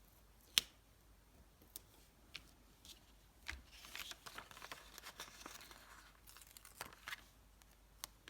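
Stickers being peeled from their backing sheet and handled, with crinkly peeling and tearing noise. A sharp click comes just after the start, light clicks are scattered through, and a longer run of crinkling comes from about three and a half to seven seconds in.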